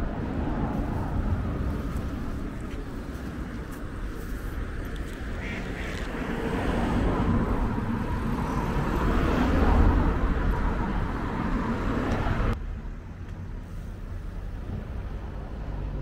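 Ducks quacking over a steady low outdoor rumble; the background drops away abruptly about three-quarters of the way through.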